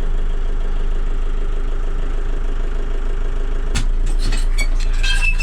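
Volvo BL70 backhoe's diesel engine idling steadily, heard from inside the cab. Near the end comes a clunk, then a few short clicks and squeaks from the cab's fittings, which sound a little squeaky.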